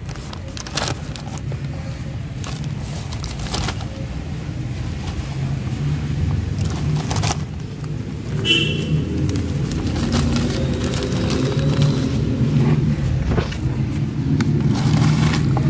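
Black plastic nursery bags crinkling and potting mix being scooped and poured into them, with a few sharp crackles from the plastic. Under it a steady low rumble, like a motor vehicle's engine, slowly grows louder.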